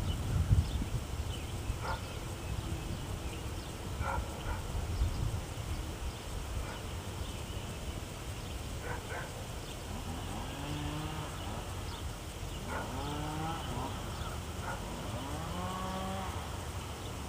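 Cattle mooing in the distance: several drawn-out calls, each about a second long and rising then falling in pitch, in the second half. They sound over a low outdoor rumble and a few faint clicks.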